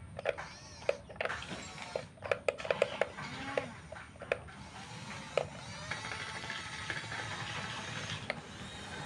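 Small electric motors of radio-controlled model construction machines whining up and down in pitch as they work, with many sharp clicks and knocks from the moving parts.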